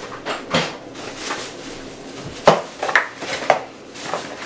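Household items being handled: a run of about six light knocks and clatters, the sharpest about two and a half seconds in.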